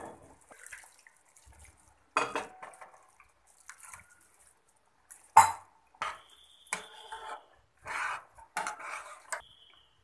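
Metal ladle knocking and scraping against the side of a metal pot while stirring rice in water, in a series of irregular clinks with the loudest about halfway through.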